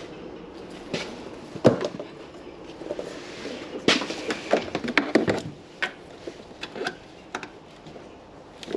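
Handling noises as a garden hose is pulled along and its fitting brought to a pressure washer: scattered knocks and clicks. The sharpest knock comes about a second and a half in, and a busy run of clicks follows about four to five seconds in.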